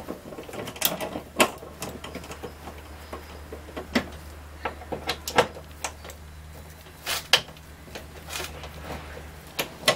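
Hand ratchet and socket loosening T40 Torx bolts on a car window regulator: scattered clicks and metal knocks at irregular intervals. A steady low hum runs underneath and stops shortly before the end.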